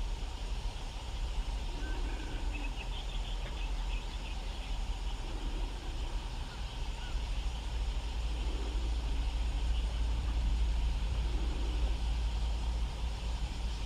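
Steady low outdoor rumble, with a few faint high bird chirps about two to four seconds in.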